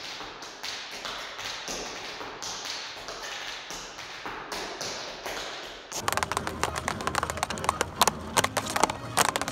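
Tap shoes striking a floor in quick rhythmic runs, soft and muffled at first. About six seconds in they give way to louder, crisper taps on a wooden tap board, with music underneath.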